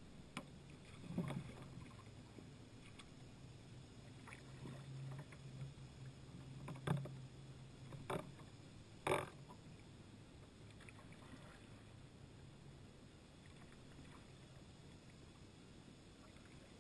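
Kayak paddling on calm water: quiet paddle strokes with a few sharp knocks and splashes in the first half, the loudest about nine seconds in, then only faint water sounds.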